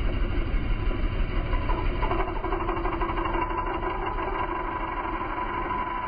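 2005 Huskee LT4600 riding lawn tractor's engine running steadily; a steady whine joins about two seconds in.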